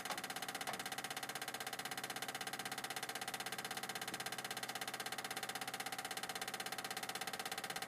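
1951 Willys Jeep's engine idling steadily with an even beat, just after it first fired up following new plugs and plug wires.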